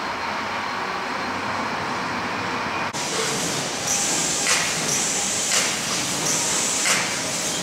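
Steady mechanical din of greenhouse bench-transport machinery. About three seconds in it gives way to the running of an automated pot-handling machine, with repeated short high hisses as its gripper works.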